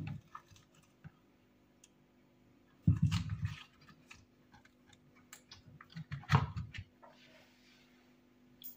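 Handling of a silicone ice-pop mold on a wooden cutting board as frozen pops are worked out of and back into it: scattered light clicks, with two heavier dull bumps and rubs about three and six seconds in.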